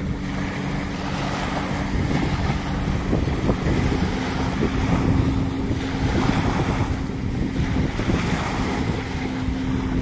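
Small waves washing and breaking on a sandy beach, with wind buffeting the microphone. A faint steady low hum runs underneath.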